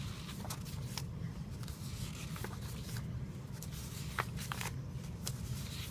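Sheets of printer paper being handled and restacked, giving soft rustles and a few light scattered ticks over a low steady rumble.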